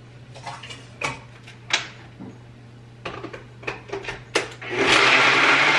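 A few clicks and knocks as the Nutribullet cup is handled, then about five seconds in the Nutribullet blender starts: a sudden loud motor whir with ice cubes and shake ingredients churning.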